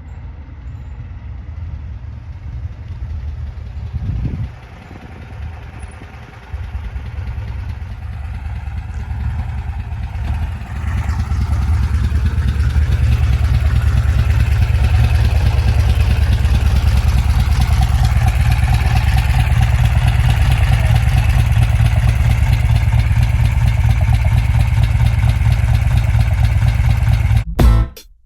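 Air-cooled VW flat-four engine of a 1963 23-window bus running. It grows louder about eleven seconds in, then holds steady.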